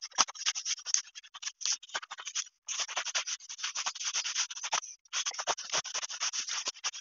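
Mud splatter being wiped off a wall board by hand: quick back-and-forth rubbing strokes, with short breaks about two and a half and five seconds in.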